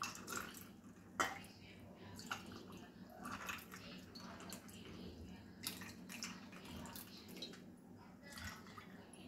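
Cold tea poured from a jug into glasses packed with ice cubes: faint splashing of liquid, with sharp clicks of ice and glass, the loudest about a second in.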